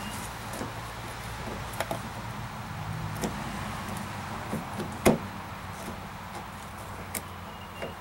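Scattered light clicks and knocks of a 1995 Dodge Ram pickup's plastic outer door handle being worked loose out of its door opening, with one sharper knock about five seconds in. A steady low hum runs underneath.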